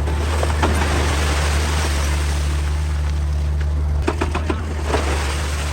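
Excavator's diesel engine running steadily with a deep, constant hum under a rushing noise, with a few scattered knocks about four to five seconds in.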